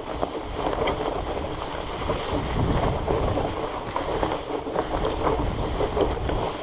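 Wind rumbling on the microphone while riding a fat bike along an overgrown trail, with a constant irregular rustle and rattle as the bike pushes through brush.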